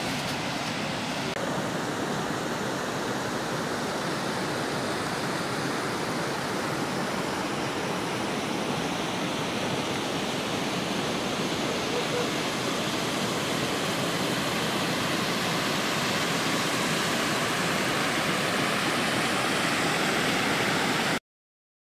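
Water rushing steadily, as from a mountain stream or the inflow of a trout pond, growing slightly louder and cutting off suddenly near the end.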